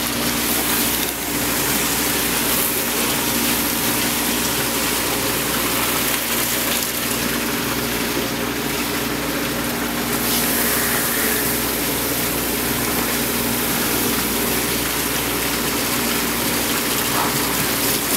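Steady rushing water noise with a low, steady machine hum beneath it, constant throughout.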